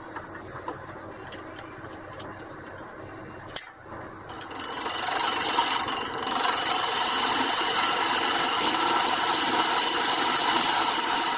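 A few light clicks and taps at first, then from about four seconds in a Record Power wood lathe spinning an oak blank while a turning chisel cuts its end grain: a steady scraping hiss of the cut over the hum of the lathe.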